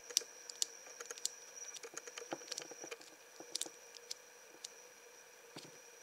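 Four-dial combination cable bike lock being handled, with faint, irregular small clicks as the lock is closed and its dials are turned.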